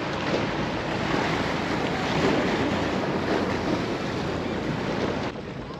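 Surf washing against the jetty, with wind noise on the microphone: a steady rushing that drops off a little past five seconds in.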